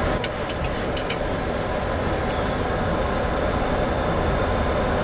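Steady rushing noise on the flight deck of a Boeing 737-800 in flight on approach, the hiss of air streaming past the cockpit, with a few faint ticks in about the first second.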